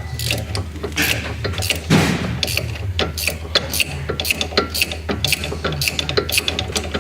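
Ratchet wrench clicking in repeated short strokes as the sway bar end link nut is loosened, about three clicks a second, with a louder metal clank about two seconds in.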